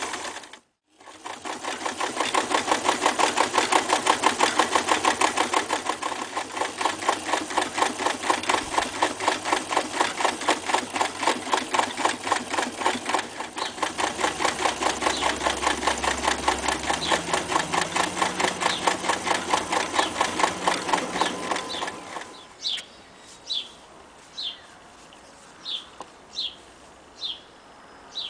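Reads 300 zigzag electric sewing machine running fast, stitching through several folded layers of denim with a rapid, even needle rhythm. It starts about a second in and stops about 22 seconds in, after which short high chirps repeat about once a second.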